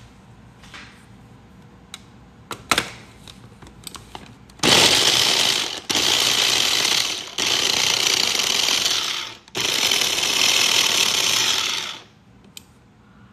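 Electric mini food chopper grinding onion finely, run in four bursts of one to two and a half seconds with brief stops between them. A few knocks come first, before the motor starts.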